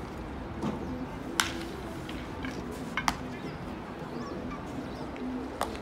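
Sharp cracks of bats hitting baseballs in batting practice: a faint one, then a loud crack about a second and a half in, a quick double crack around three seconds, and another loud one near the end. Distant voices call in the background.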